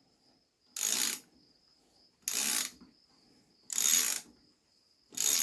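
A 1/2-inch ratchet being swung back and forth to unscrew a plug from a manual transmission case. It gives four short clicking strokes, about one every second and a half.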